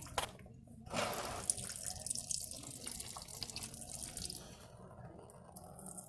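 Brake fluid flowing from an open bleeder screw under pressure, spitting and gurgling where pockets of air come through: air being purged from the brake line. It starts about a second in and dies down near the end.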